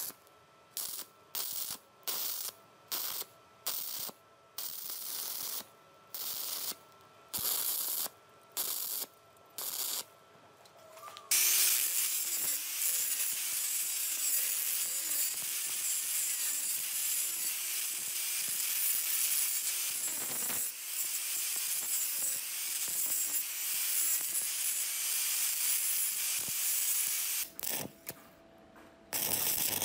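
Stick welder's arc crackling in a run of about a dozen short, sharply cut bursts. Then an angle grinder with an abrasive disc grinds down weld bead on a steel hammer head in one steady grind, the motor's pitch wavering under load. Near the end the arc crackles again.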